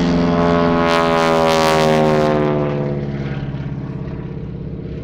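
Boeing Stearman biplane's radial engine and propeller passing by; the engine pitch drops as it goes past, loudest about two seconds in, then fading away.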